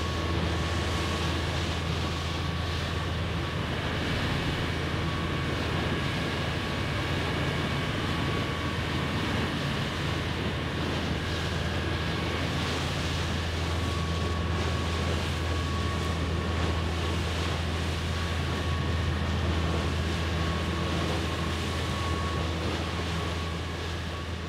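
Boat engine running at a steady speed: a constant low hum with a faint steady whine above it and a rush of water and wind.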